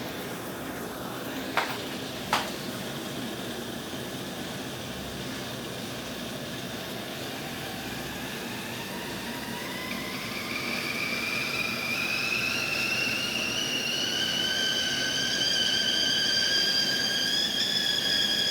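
Kettle whistle starting up as the water comes to the boil: a whistle begins about halfway through, rising in pitch and growing louder toward the end, the sign that the repaired whistle works. Two sharp clicks sound near the start.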